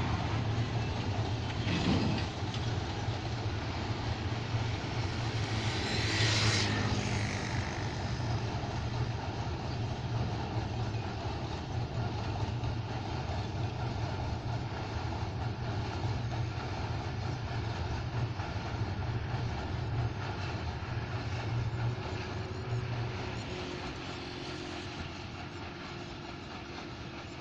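Jaffar Express passenger train rumbling steadily as it crosses a steel truss bridge, heard from a distance, fading over the last few seconds as it moves away. A brief louder swell comes about six seconds in.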